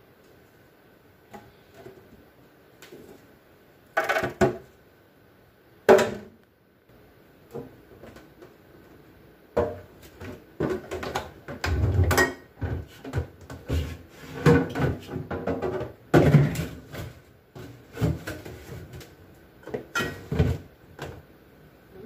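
Things being put back into a refrigerator: a series of irregular knocks, bumps and clatters. There are two sharp loud knocks about four and six seconds in, then a busier stretch of handling noise through most of the rest.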